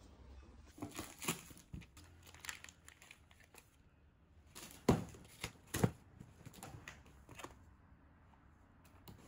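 Cardboard delivery box being unpacked: plastic-wrapped food packs crinkling and rustling as they are handled, with a string of sharp handling noises, the loudest two about five and six seconds in.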